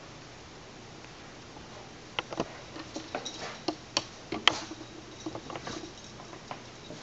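A Boston terrier tussling with a plush toy on carpet makes an irregular run of soft clicks, taps and knocks. They start about two seconds in, are loudest about four and a half seconds in, and die away near the end.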